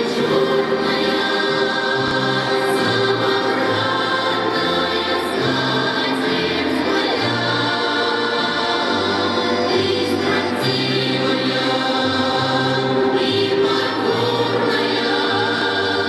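Russian folk choir singing a song in several voices, holding long notes over a low part that steps from note to note.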